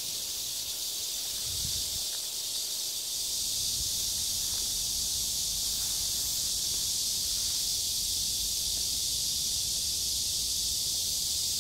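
Steady high-pitched insect chorus, an even hiss with no distinct calls, getting a little louder about three seconds in.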